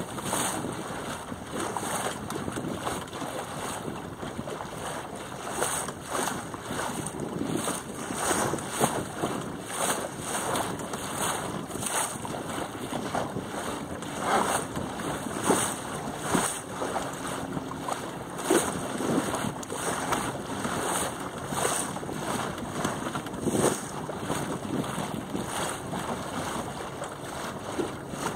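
Small sailing dinghy moving through light chop: water splashing and slapping irregularly against the hull, over steady wind noise on the microphone.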